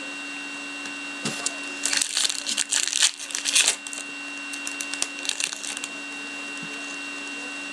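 Foil trading-card pack wrapper crinkling and cards rustling as they are handled, in two spells: one from about a second in to about four seconds, and a shorter one around five seconds. A steady electrical hum runs underneath.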